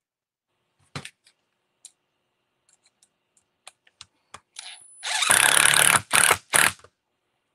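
Light clicks of small parts being handled, then about five seconds in a loud scraping and knocking in three pulses: the table camera and its microphone being bumped.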